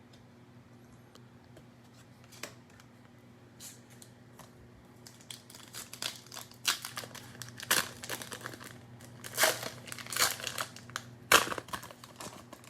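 Plastic cellophane wrapper of a trading-card pack crinkling and tearing as it is opened and handled. It starts with only a few faint crackles, then grows into a busy run of crinkling about five seconds in.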